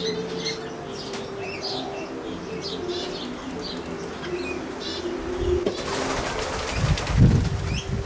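Small birds chirping over a dove's steady, low cooing, then, about six seconds in, a loud burst of wing flapping as the birds at the bird bath fly off.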